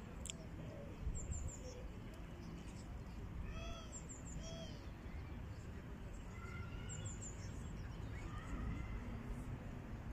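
Small birds chirping in short high calls, some in quick runs of three or four notes, scattered through a low background rumble of park ambience, with faint distant voices.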